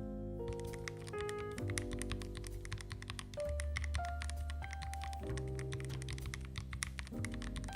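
Fast typing on a custom keyboard fitted with semi-transparent keycaps: a rapid, continuous run of key presses starting about half a second in, over background music.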